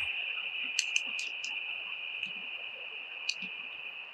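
A few small sharp clicks of plastic and metal parts as a screwdriver and fingers work a plastic gear into place on a car's rear sunshade motor and torsion spring assembly, over a steady high hiss. Four clicks come close together in the first second and a half, and one more a little after three seconds.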